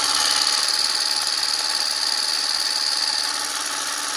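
Small mains-powered 100 V, 70 W electric grass shears (YLB-160) running: the motor and reciprocating cutter blade make a steady buzzing whir, easing slightly a little after three seconds in.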